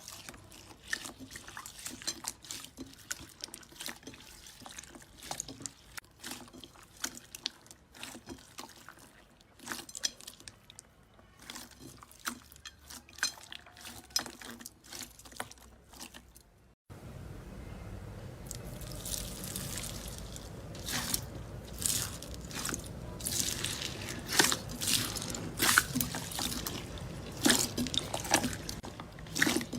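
Slime being squeezed and pressed by hand: wet clicking, popping and crackling. About two-thirds of the way through it cuts to a louder clip over a steady low background, with sharper, denser pops.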